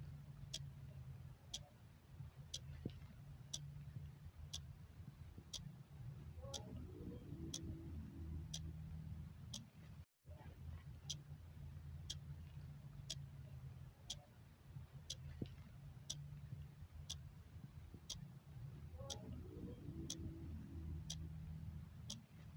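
Clock ticking steadily, about three ticks every two seconds, over a low background hum. The sound cuts out for a moment about ten seconds in.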